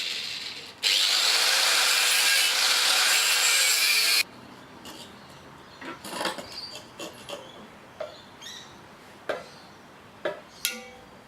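A power tool cutting through steel exhaust pipe with a steady, loud noise that stops suddenly about four seconds in. Scattered knocks and taps of metal parts being handled follow.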